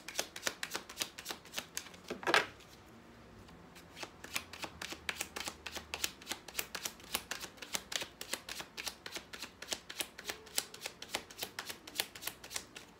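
A tarot deck being shuffled by hand: a quick, steady run of card flicks, with one louder knock about two seconds in and a short pause before the shuffling picks up again.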